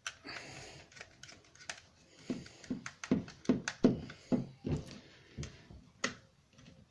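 Hand screwdriver tightening the terminal screws on the back of a British General USB double socket: a brief rustle at the start, then a quick run of knocks and clicks, about three a second, for a few seconds in the middle.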